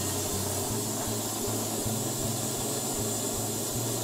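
Oxy torch flame burning with a steady hiss, with a low pulsing about three times a second underneath.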